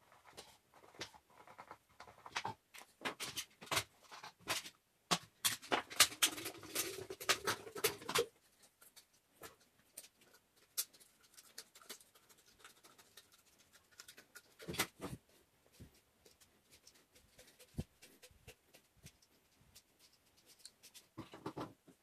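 Thin plastic drink bottle being handled and cut with scissors: a run of crackles and clicks, dense in the first eight seconds, then sparse snips and taps.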